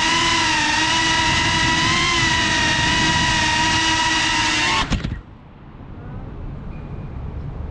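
FPV quadcopter's motors and propellers whining steadily, heard from the drone's onboard GoPro, with small rises and dips in pitch. About five seconds in a few knocks mark the drone touching down on the pavement, and the motor whine cuts off suddenly. Faint outdoor background noise is left after it.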